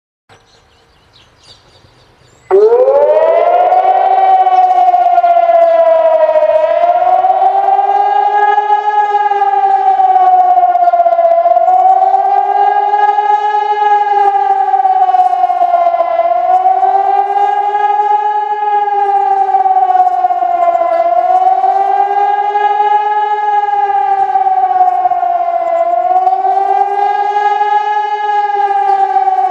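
Hörmann ECN 2400 electronic civil-defence siren sounding in a siren test: it switches on about two and a half seconds in with a quick upward sweep, then wails steadily, its pitch rising and falling about every five seconds.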